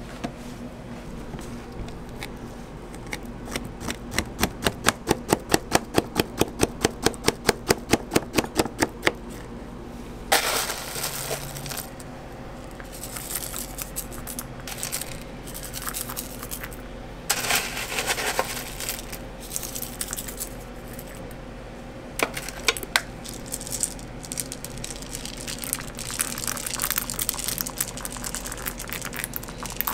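A knife chops quickly and evenly through a banana on a plastic cutting board, about four strokes a second, for the first nine seconds or so. Then crunchy toppings (nuts, cornflakes, chocolate chips) are spooned and poured onto a giant crepe, with irregular rattling, pattering scatters.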